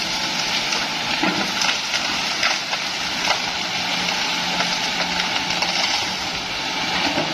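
Hitachi excavator's diesel engine running steadily under load, with a steady hum beneath a broad mechanical noise. Several sharp cracks and snaps cut through, typical of bamboo and brush breaking under the machine.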